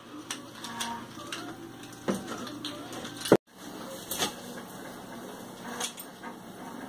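Faint handling noises with a few sharp clicks and knocks as the wire branches of an artificial Christmas tree are fitted into its trunk and stand. The sound cuts out completely for a moment a little past halfway, after the loudest knock.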